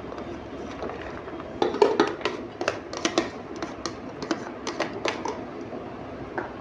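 Soaked chana dal (split chickpeas) tipped from a plastic tub into a metal pressure cooker and scraped out with a plastic spoon: a run of quick clicks and rattles. It is loudest about two seconds in and dies away after about five seconds, over a steady hiss.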